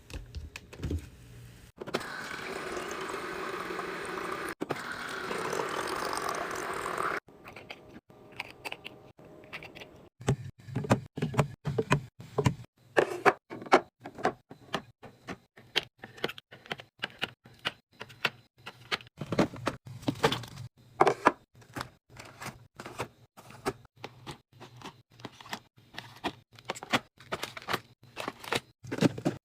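Food packaging and containers being handled while a fridge is restocked. Early on there is a steady noisy rush of about five seconds, then a long run of quick clicks, taps and knocks as items are set down and lids opened and closed.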